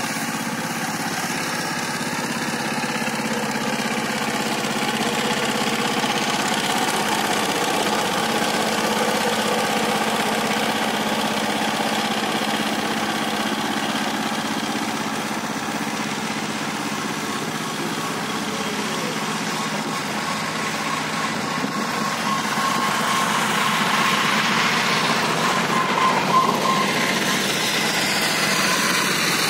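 Two-wheel power tiller's single-cylinder diesel engine running steadily under load as it pulls a rotavator through the soil, its pitch and loudness shifting a little near the end.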